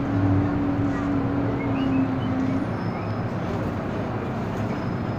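MTR M-Train (Metro-Cammell electric multiple unit) running through a tunnel, heard from inside the carriage: steady wheel and running noise with a steady hum that stops about halfway through.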